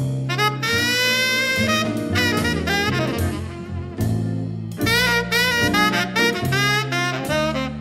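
Blues music: an instrumental break of the song, with a wavering lead melody over a low bass line and drums.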